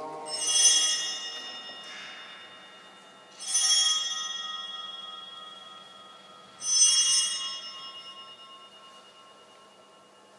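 Altar bell rung three times, about three seconds apart, each ring a cluster of high tones dying away slowly. It is the sanctus bell marking the elevation of the chalice at the consecration.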